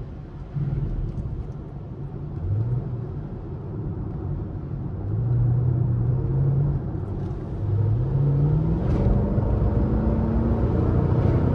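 5th-gen Camaro SS's 6.2-litre V8 through its stock exhaust under acceleration: the engine note climbs about two seconds in, holds, drops briefly near the middle, then climbs steadily again and grows louder toward the end.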